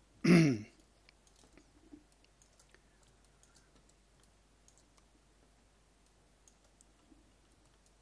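Faint computer mouse clicks, scattered irregularly, after a brief spoken word at the start.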